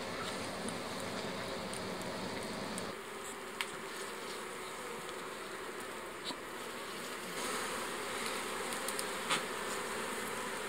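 Honeybees buzzing in a steady hum from an opened hive, its tone shifting abruptly about three seconds in and again past halfway, with a few short clicks.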